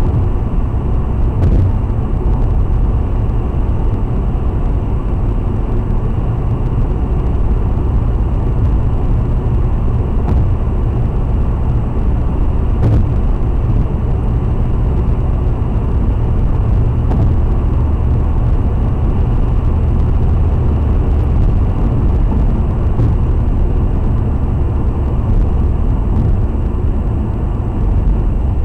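Steady low road noise of a car cruising on a highway, heard from inside the cabin, with a few faint ticks.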